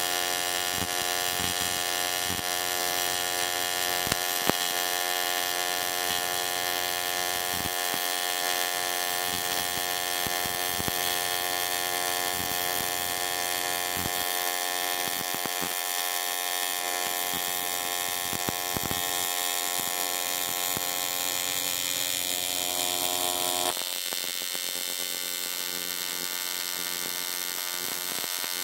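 AC TIG welding arc on aluminum, a steady high buzz with scattered crackles. About 24 seconds in the buzz drops a little and changes tone.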